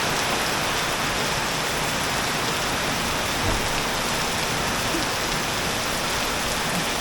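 Heavy storm rain pouring down onto a swimming pool, a steady, dense hiss that does not let up.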